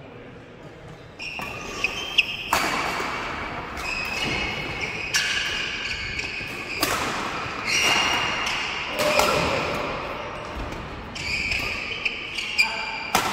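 Badminton rally: a string of sharp racket hits on the shuttlecock, with players' court shoes squeaking on the sports-hall floor as they move. The hits echo in the large hall.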